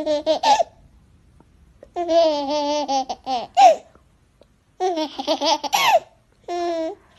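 High-pitched human laughter, in four giggling bursts with short pauses between.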